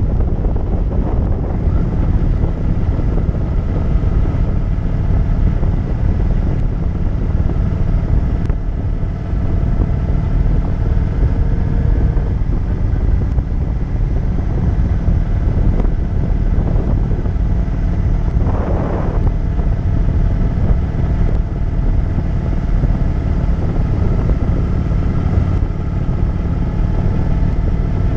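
Motorcycle engine running at a steady cruise, its pitch drifting a little with throttle, under heavy wind rumble on the microphone.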